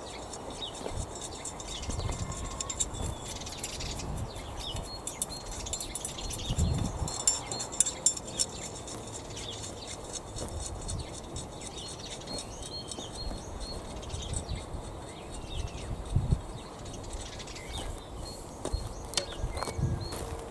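Garden rake scraping and drawing soil and spent compost across a raised bed, covering a sown seed drill, in uneven strokes, with birds chirping in the background. Footsteps on wood chips near the end.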